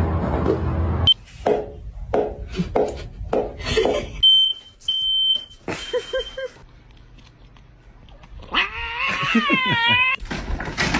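A cat meowing, with a long wavering meow about eight and a half seconds in, among several short sounds. A few short high beeps come a little past four seconds.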